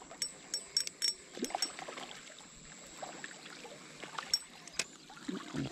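Spinning reel being cranked to reel in a hooked fish, giving irregular clicks, mostly in the first second, with faint splashing of water from the fish.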